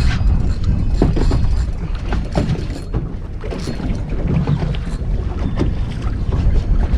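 Wind buffeting the microphone over water lapping against a small boat's hull, a steady low rumble with a few light clicks and knocks scattered through it.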